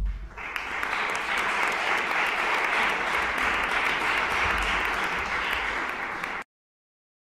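Audience applause, a steady dense clapping that starts just after the talk's closing thanks and cuts off suddenly near the end.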